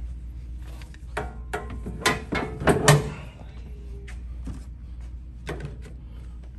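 Clicks and knocks of a magnetic display panel and its hardware being handled and set back into a wall fixture, the loudest pair about three seconds in, over a steady low hum.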